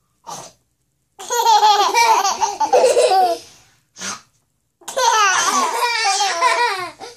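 Toddler laughing in two long bouts, each led in by a short burst of voice.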